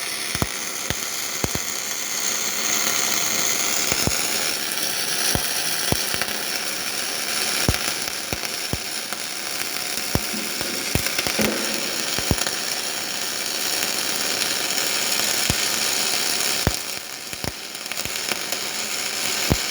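Robotic arc welding: a steady hiss broken by irregular sharp crackles, dipping a little in level near the end.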